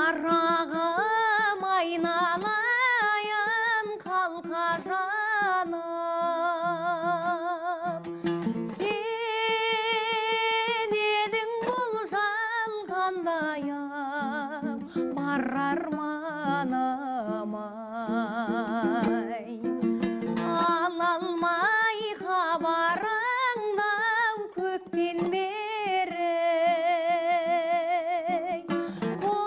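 A voice sings a melody with a wide, fast vibrato over a plucked string accompaniment.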